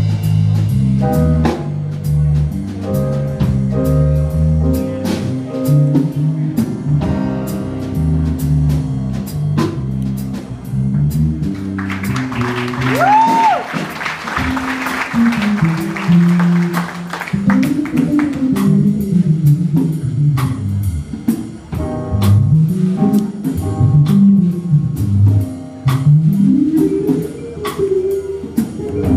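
A live band playing: a drum kit and keyboard over moving low notes. In the second half the low notes slide up and down in bends.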